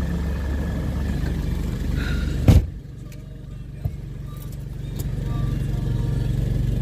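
A car door slams shut about two and a half seconds in. After it the car's engine is heard idling steadily, muffled inside the closed cabin.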